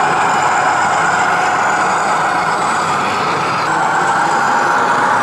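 Radio-controlled scale model tractor running with a steady engine sound that changes slightly about three and a half seconds in.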